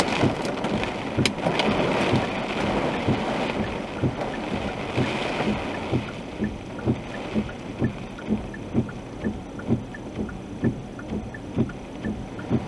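Rain and hail hitting a car, heard from inside it, with sharp hail ticks in the first couple of seconds. The hail thins out about halfway through, and a steady beat of soft thumps, about two a second, takes over, typical of windscreen wipers sweeping on a fast setting.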